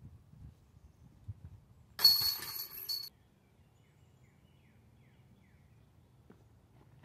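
A disc striking the chains of a disc golf basket: a sudden loud metallic clatter and jingle of chains lasting about a second, cut off abruptly.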